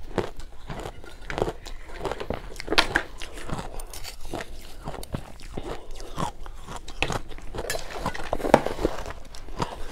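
Close-up crunching and chewing of a mouthful of powdery ice dusted with matcha powder: an irregular run of short, crisp crunches, along with a spoon digging into the ice in the tub.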